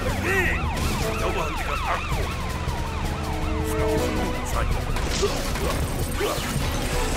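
Cartoon soundtrack music made of many overlapping swooping tones that rise and fall, like sirens, with a long falling tone and a few held notes, over a steady low rumble.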